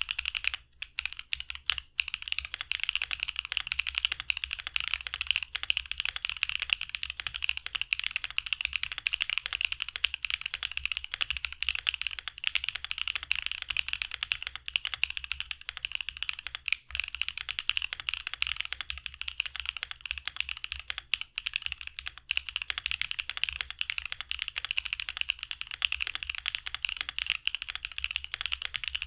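Fast, continuous typing on a mechanical keyboard with stock, unlubed Akko V3 Cream Yellow Pro linear switches: a dense run of key clacks with a creamy sound and no spring ping. There are brief pauses in the first two seconds and once about 17 seconds in.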